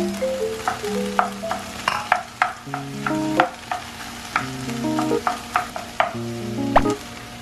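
A wooden spatula stirring and breaking up tofu with chicken and vegetables in a hot nonstick frying pan: sizzling, with irregular clicks and scrapes of the spatula against the pan. Soft background music with held notes plays underneath.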